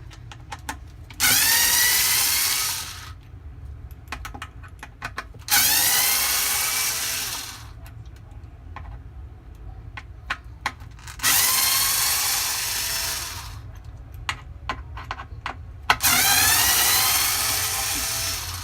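Power drill-driver fitted with a T20 Torx bit, run four times for about two seconds each to back out screws, each run spinning up as it starts. Small clicks of handling come between the runs.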